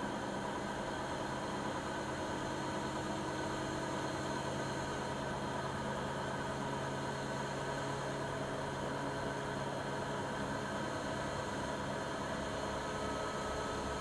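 Siemens iQ300 front-loading washing machine running its spin cycle: a steady motor hum with fixed whining tones over the rush of the spinning drum, level and unchanging.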